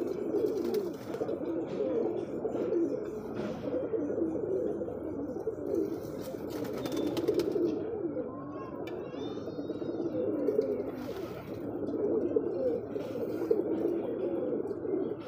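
Domestic pigeons cooing continuously in low, overlapping coos, the courtship cooing of a puffed-up male displaying to a hen. A few brief higher chirps from a small bird come about nine seconds in.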